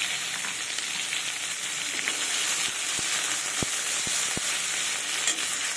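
Fennel seeds and other whole spices sizzling in hot refined vegetable oil in a kadai, a steady hiss with a few small pops around the middle.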